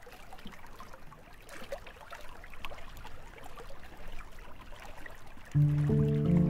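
Water running and trickling, an even hiss dotted with small irregular splashes. Near the end, music starts with held notes.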